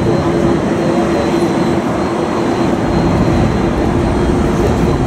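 Jet aircraft noise: a loud, steady rumble with a constant low hum running through it, without rising or falling.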